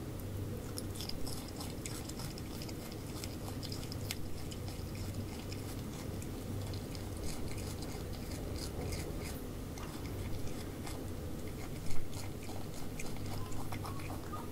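Common brushtail possums chewing and biting apple: a long run of quick, fine crunching clicks over a steady low hum. There is one louder knock about twelve seconds in.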